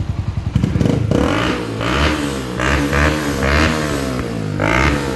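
Yamaha Sniper 150's single-cylinder engine breathing through an Exos X6 aftermarket exhaust, idling briefly, then revved in a series of quick throttle blips that rise and fall in pitch.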